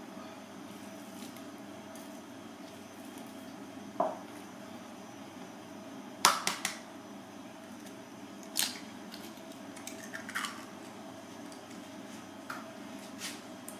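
An egg cracked against the rim of a glass bowl: a sharp tap about six seconds in followed by two smaller taps and shell clicks. Earlier, a single knock with a short ring as the glass bowl is handled, and a few lighter clicks and knocks later, over a steady background hiss and hum.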